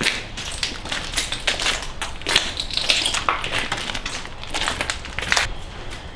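Footsteps crunching over debris on the floor, a dense run of irregular crunches and clicks.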